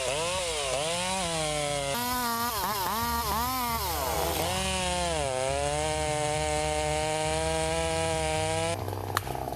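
Chainsaw engine running under load as it cuts wood, its pitch dipping and rising repeatedly, then holding steady before cutting off abruptly near the end. A few sharp clicks follow.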